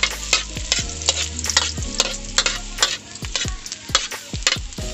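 Ginger sizzling in very hot cooking oil in a wok, with a metal ladle clinking and scraping against the pan at irregular intervals as it is stirred.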